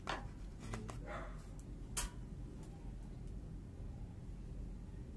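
A stiff paper racket cover being handled: a few light clicks and short rustles, with one sharper tap about two seconds in.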